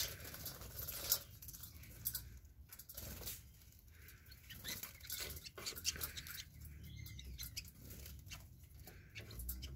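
Small cage birds bathing in a shallow metal water bowl: quick splashes and wing flutters in the water, coming in irregular bursts.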